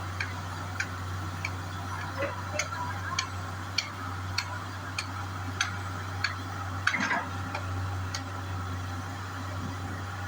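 Diesel engine idling on a test run after fuel injection pump and injector work: a steady low hum with a sharp, regular tick somewhat under twice a second, and one louder clatter about seven seconds in.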